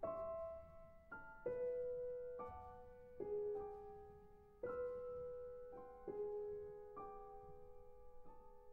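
Solo piano in a contemporary classical piece, playing quiet, separate notes and chords in the middle register, about one a second, each struck and left to ring and decay; the last one dies away near the end.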